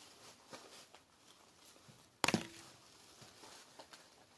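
A single sharp knock a little over two seconds in, with a brief ring, as a supply item is set down on a hard surface, amid faint handling clicks.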